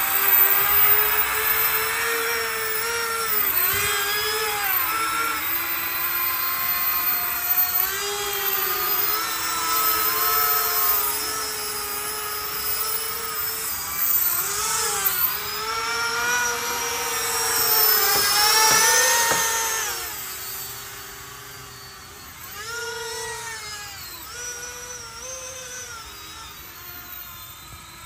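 Whine of a 3D-printed drone's 70 mm electric ducted fans in flight during an acceleration run, its pitch rising and falling as the throttle changes. It is loudest about eighteen seconds in, then grows fainter as the drone flies away.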